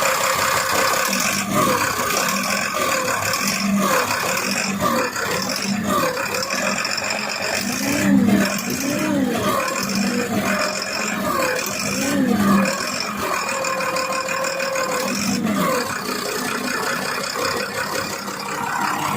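Deutz TD226B six-cylinder diesel running and repeatedly revving up and down under hydraulic load, with a sharp high-pitched knock from the third cylinder's fuel injector. The injector's nozzle does not seal against the body through its spacer and passes fuel.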